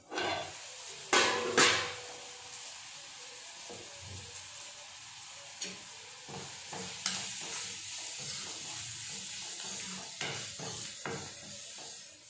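Onions and green chillies frying in oil in a kadai, a steady sizzle once the lid comes off. Two loud metal clanks about a second in, then a steel spoon scraping and stirring in the pan.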